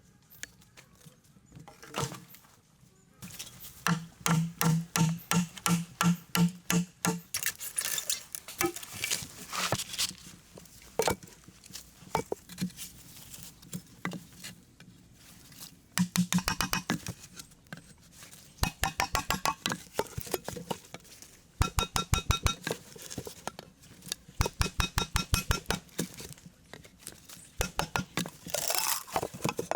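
Hand-tool strikes in quick bursts of about four a second, pausing between runs; some strikes carry a short ring.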